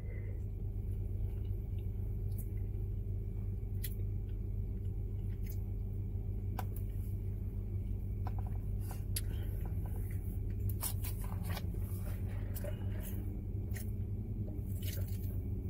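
Steady low hum of a car idling, heard from inside the cabin, with scattered small clicks and smacks of someone eating from a spoon and cup.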